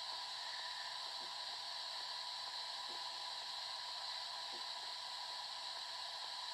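Steady hiss with a thin, steady high whine running under it: the background noise of an old video recording's soundtrack, with nothing else happening.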